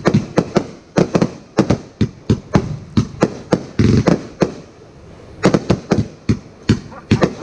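Fireworks going off in a rapid string of sharp bangs, about two to three a second, with a pause of roughly a second about halfway through before the bangs resume.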